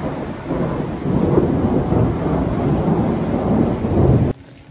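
Heavy rain pouring down, loud and low-pitched. It builds over the first second and cuts off suddenly near the end.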